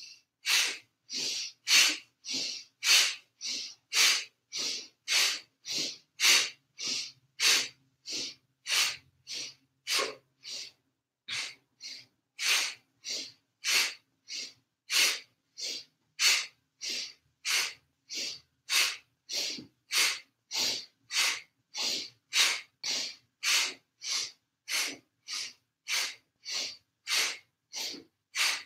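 A woman breathing sharply and forcefully through the nose, in and out, in a steady rhythm of about two breaths a second. This is Kundalini kriya breathing, each inhale and exhale paced by a seated twist to one side and then the other.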